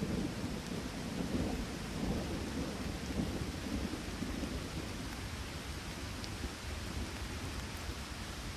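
Steady rain falling, under a low, rolling rumble that eases off after about four seconds.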